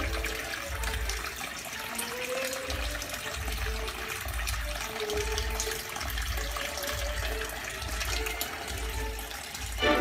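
Water trickling and splattering steadily in a small waterfall feature of a home aquaponic grow setup, with faint music and a soft beat underneath.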